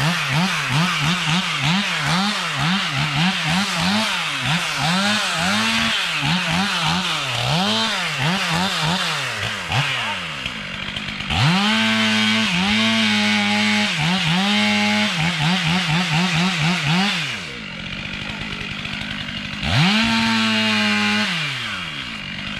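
Two-stroke chainsaw felling diseased ash: the engine revs up and down rapidly for about ten seconds, holds at high revs through a cut for about six seconds, drops to idle, then revs up again near the end.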